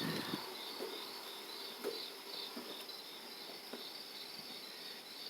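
Insects trilling in the background: a high, even, pulsing chirr, with a few faint light ticks.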